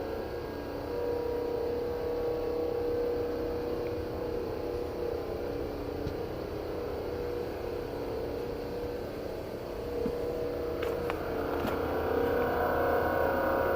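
An unexplained steady droning hum made of several held tones, the kind of mysterious 'strange sound' that gets passed around as an omen. A few faint clicks come through near the end.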